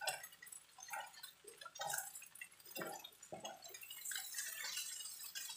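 Garlic-marinated shrimp sizzling and spitting in hot oil in a nonstick wok, with a spatula scraping and knocking against the pan several times. The crackle grows denser near the end.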